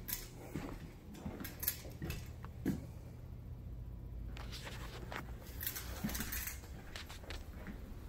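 Handling noise and light footsteps of someone walking with a handheld camera: a few soft knocks and clicks in the first few seconds, then brief rustles, over a low steady hum.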